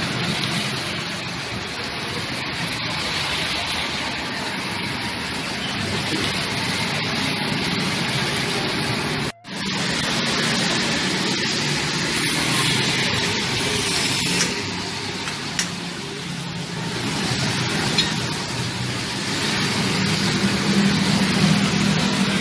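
Steady background noise of a roadside food stall, with motorbike traffic passing in the street; the sound cuts out for an instant about nine seconds in.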